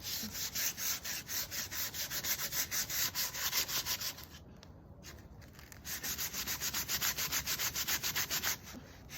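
Sandpaper rubbed by hand on a block of wood in quick back-and-forth strokes, about five or six a second, with a pause of a second or two midway.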